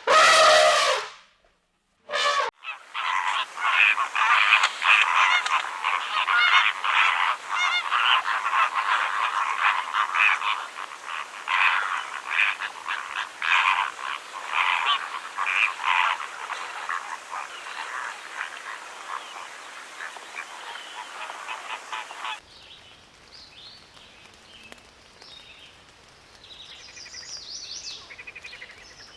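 A flock or colony of birds honking and calling over one another in a dense, continuous chorus, opened by two loud single calls. About three quarters of the way through it cuts to faint, scattered chirping.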